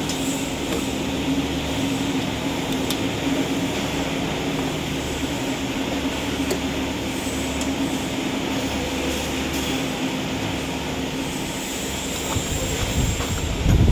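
Steady hum of running can-seaming machinery on a factory line, with a few faint clicks and some low thumps near the end.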